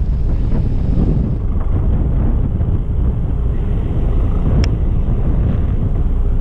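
Wind buffeting the microphone over open sea: a steady, loud low rumble with the wash of the water beneath it. A single sharp click sounds about four and a half seconds in.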